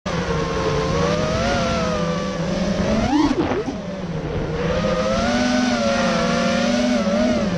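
FPV freestyle quadcopter's brushless motors whining, heard from the onboard camera over a wash of wind noise. The whine holds fairly steady, then rises and falls sharply in pitch twice, about three seconds in and near the end, as the throttle is pushed.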